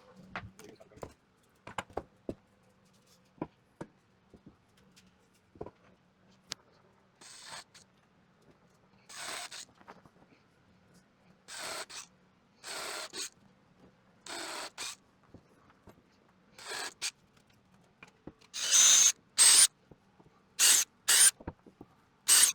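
Short bursts of hissing, about a dozen, coming closer together and louder near the end, after a few seconds of light clicks and knocks.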